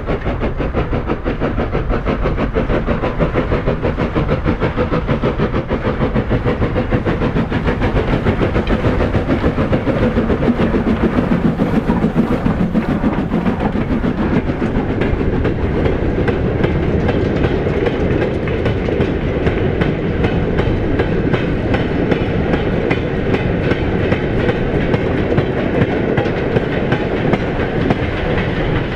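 A steam-hauled goods train running past, the wheels of its wagons clattering steadily and rapidly over the rail joints.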